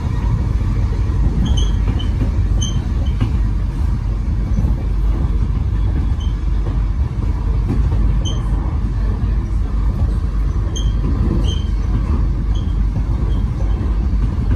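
Melbourne Metro suburban electric train running along the track: a steady low rumble of wheels on rail, with a few short high-pitched squeaks scattered through it.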